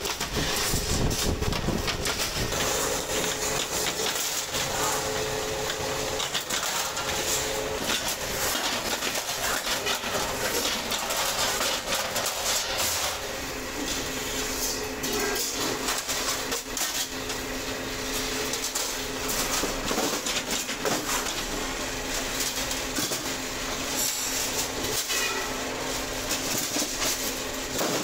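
Sheet-metal cutting machine running with a continuous mechanical rattle and clatter over a steady motor hum, as stainless steel sheet is cut. The hum changes pitch about halfway through.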